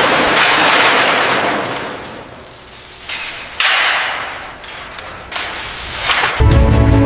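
Whoosh sound effects: a long swell of hiss that fades, a sudden whoosh a little past halfway that dies away, and a rising whoosh that leads into a music track starting just before the end.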